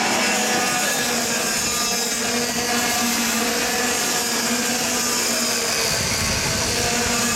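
Several 60cc two-stroke kart engines buzzing at high revs as the karts race past, a steady high-pitched whine. A deeper low rumble joins about six seconds in.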